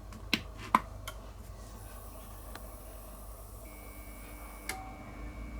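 Two sharp clicks as the sandwich maker is switched onto the Bluetti EB3A portable power station. Then a faint steady high-pitched electronic whine from the power station's inverter as the load builds toward its 600 W overload. Another click comes near the end.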